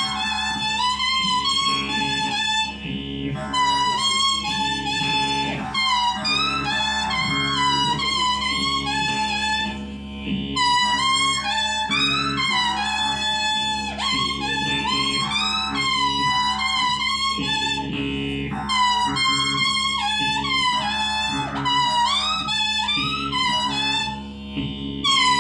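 H'Mông khèn (qeej), a bamboo free-reed mouth organ, playing a winding melody with bent notes over a steady low drone. There are short breaks at about 3, 10 and 25 seconds.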